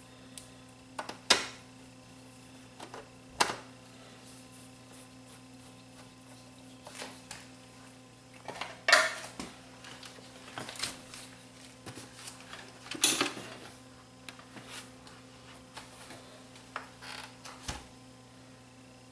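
Scattered metal clinks, clicks and knocks of hands working on parts and screws inside a cassette deck's open sheet-metal chassis, with a few louder knocks spread through, over a low steady hum.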